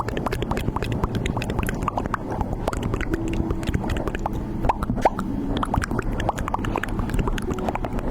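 Slime being squeezed and kneaded close to the microphone: a dense, irregular run of small wet pops and clicks, some with short bubbly blips, over a low steady rumble.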